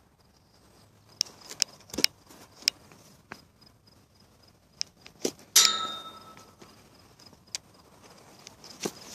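Close handling noise of a colt's rope halter and lead rope: scattered taps, rubs and knocks, with one sharp metallic clink about five and a half seconds in that rings briefly.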